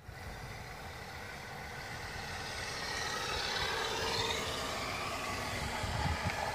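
Radio-controlled T-28 Trojan scale model plane flying a low pass, its motor and propeller drone growing louder toward the middle, with the pitch bending up and then down as it goes by.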